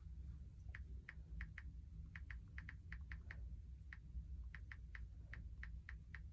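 Faint clicks of an iPhone's on-screen keyboard as an Apple ID password is typed: short, sharp ticks, several a second in uneven runs with brief pauses.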